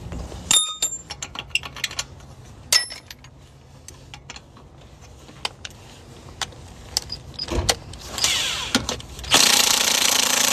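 Metal tools and lug-nut hardware clinking and clicking, then near the end a cordless impact wrench spinning up and running hard for about a second and a half before it cuts off suddenly.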